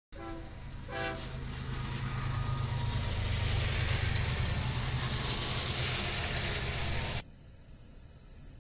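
Freight train led by Ferromex diesel locomotives passing close by: two short horn blasts about a second apart at the start, then the steady rumble of the diesel engines and wheels with a high-pitched ring as the locomotives and tank cars roll past. About seven seconds in it cuts off suddenly to a much fainter, distant rail-yard background.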